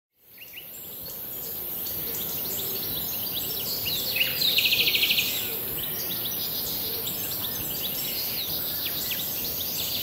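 Birds singing, with many short chirps and a rapid trill about four seconds in, over a steady high hiss; the sound fades in at the start.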